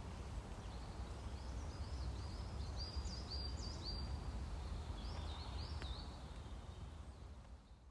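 Outdoor ambience with a steady low rumble, and a small bird chirping a string of short, high notes from about two to six seconds in. The sound fades out near the end.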